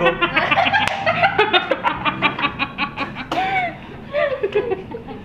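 People laughing hard in quick repeated bursts for about three seconds, then a couple of shorter laughs before it dies down.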